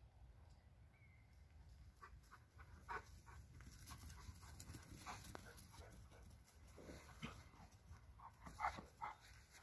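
Faint sounds of Central Asian Shepherd (Alabai) puppies playing: soft panting and scattered short, quiet noises as they run and chase.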